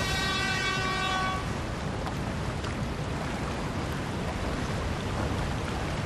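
A ship's horn sounds one steady note for about a second and a half, over a steady wash of wind and sea noise.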